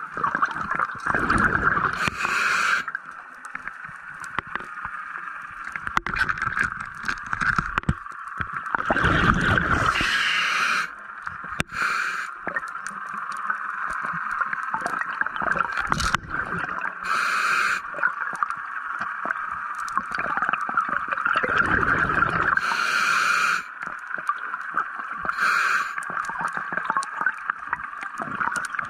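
Scuba diver breathing through a regulator underwater: exhaled bubbles gurgle and the valve hisses in cycles about every six to seven seconds, four or five times, over a steady hiss.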